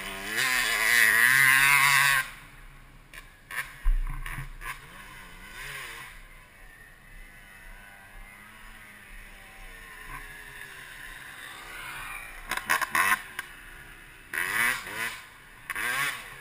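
Suzuki RM250 two-stroke dirt bike engine, revved in quick wavering blips for about two seconds at the start and again near the end, running quietly at idle in between, with a few sharp clicks.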